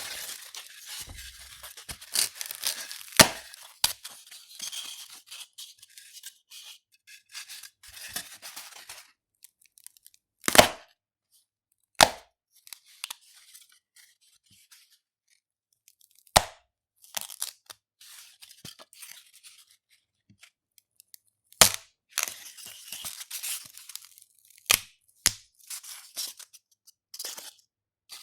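Styrofoam (expanded polystyrene) being rubbed and broken by hand: stretches of squeaky, scratchy crackling between sharp snaps as pieces break off, several of them loud, with short pauses in between.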